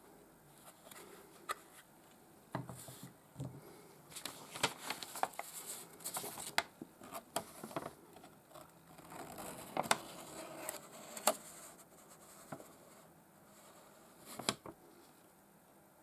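Handling noise from a plastic pistol holster and its paper instruction leaflet worked in gloved hands: scattered plastic clicks and taps mixed with paper rustling and scraping, busiest in the middle and ending with a sharp click near the end.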